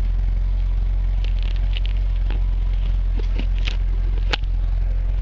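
2011 Corvette Z06's 7.0-litre V8 idling steadily through its factory exhaust, a deep even rumble. A few light clicks and one sharp tap about four seconds in.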